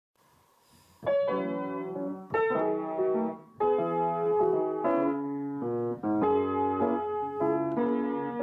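Background piano music: struck chords and single notes that ring and fade, starting about a second in after near silence.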